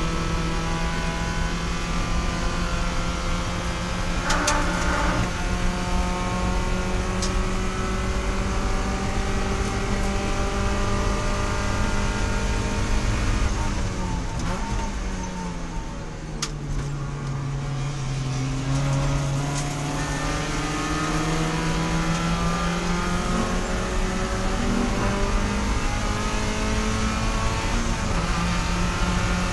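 A Spec Miata race car's four-cylinder engine running hard at high revs. About halfway through, the pitch drops as the car slows for a corner, then climbs steadily as it accelerates out.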